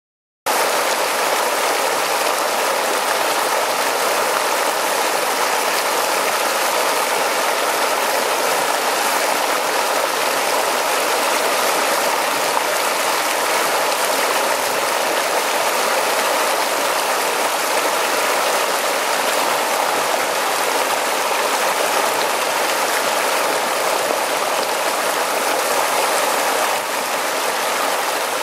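Water pouring over a small mossy ledge and splashing into churning white water below: a steady, dense rushing and splashing of a small cascade, starting abruptly about half a second in.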